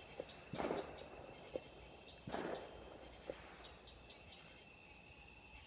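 Crickets trilling in a steady high-pitched chorus, with two short rushing noises about half a second and two and a half seconds in.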